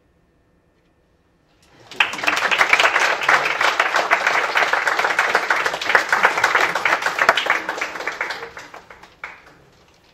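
Near silence, then a small audience breaks into applause about two seconds in, which thins out and dies away near the end: applause at the close of a performance piece.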